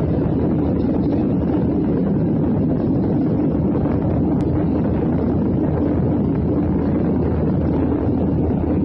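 Steady cabin noise of a jet airliner in flight: the engines and the rushing air outside heard through the fuselage as an even, low drone.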